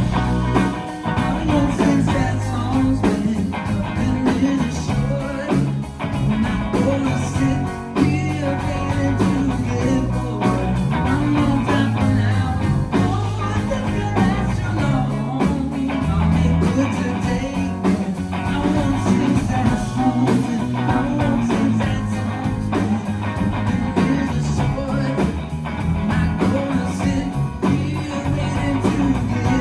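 Live band playing a rock song, with guitars over bass and drums keeping a steady beat.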